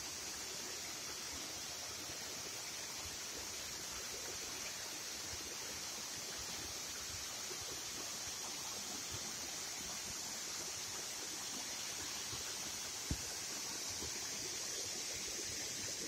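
Steady rushing and splashing of a mountain waterfall at low summer flow, its water falling in thin streams down a rock face. A single brief knock sounds about three seconds before the end.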